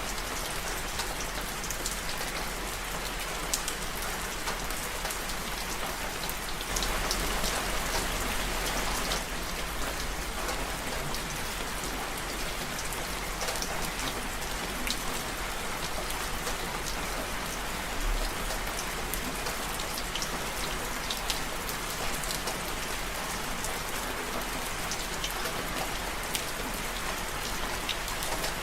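Steady rain falling, with many separate drops striking close by and a brief heavier spell about seven to nine seconds in.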